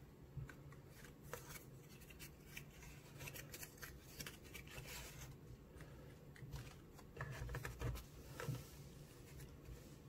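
Faint handling noise of small lighter gift boxes, a paper leaflet and a charging cable being moved about by hand: light clicks and rustles, with a few soft knocks about three quarters of the way through as the boxes are set down.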